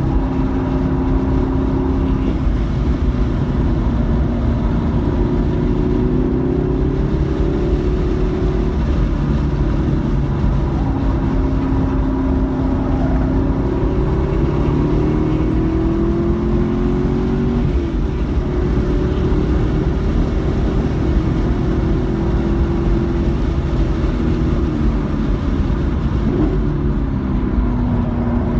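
Car engine pulling at track speed, heard from inside the cabin under heavy road and wind rumble; its pitch rises and falls steadily as the throttle is worked, with no shifts or breaks.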